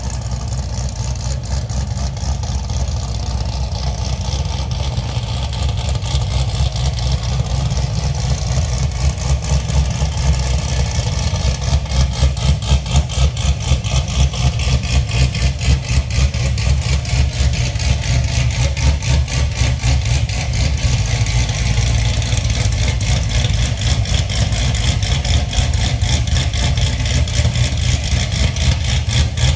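Cammed C6 Corvette V8 idling with a choppy, pulsing lope from its aftermarket camshaft as the car creeps backward, getting somewhat louder partway through.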